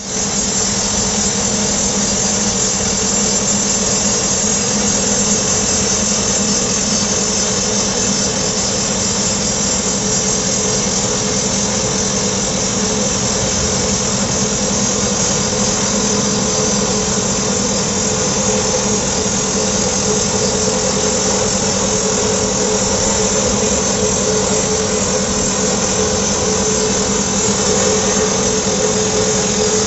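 PD-90 excavator-mounted hydraulic rock drill running steadily, its rapid percussive hammering blended with engine noise and a steady whine.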